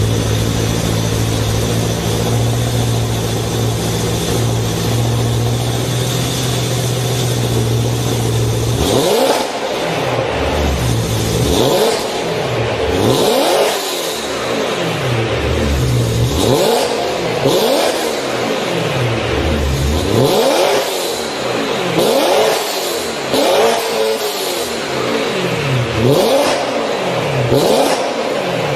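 BMW M3 E92's S65 V8, fitted with an aftermarket exhaust, idling steadily, then revved freely about ten times from roughly nine seconds in, each rev rising and falling back within a second or two.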